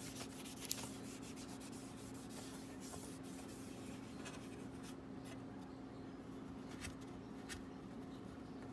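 Faint rubbing and scratching of a paper tissue wiping dust off a laptop's aluminium bottom cover, with a few light clicks as the panel is handled. A steady low hum sits underneath.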